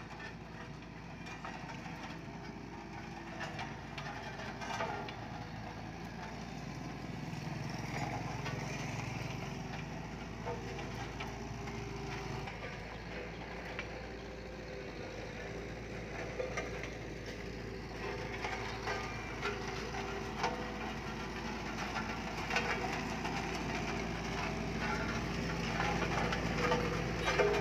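Sakai SW502 tandem road roller's diesel engine running steadily, growing louder toward the end as the roller comes close, with scattered clicks and crunches.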